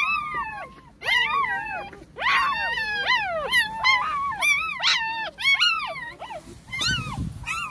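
Day-old puppies crying: a string of high-pitched whines and squeals, each rising then falling, one after another.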